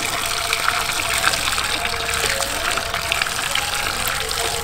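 Tap water pouring steadily into a large metal basin already full of water, with small splashes as hands wash pieces of green papaya in it.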